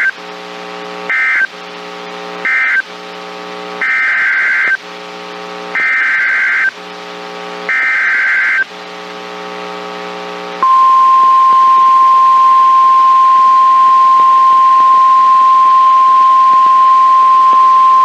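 NOAA Weather Radio SAME (EAS) data bursts: three short screeching bursts, then three longer ones, about a second apart, with a low buzz between them, marking the end of one warning and the header of the next. About ten seconds in, the weather radio's warning alarm starts, a single loud steady tone held to the end.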